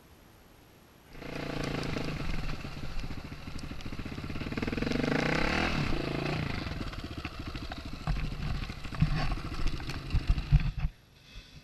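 KTM enduro motorcycle engine running under load, starting suddenly about a second in, with the revs rising and falling in the middle. Near the end come a run of heavy knocks, and then the sound cuts off suddenly.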